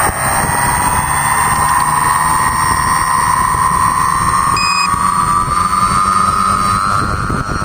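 A tricopter's electric motors and propellers whine, heard from its onboard camera, the pitch climbing slowly and steadily as the throttle comes up for a lift-off.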